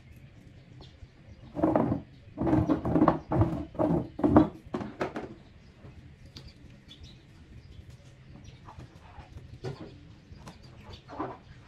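A dove cooing: a run of about six loud coos in quick succession in the first half, then two fainter coos near the end.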